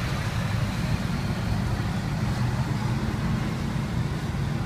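Steady low rumble of street traffic, with engine noise running continuously and no single event standing out.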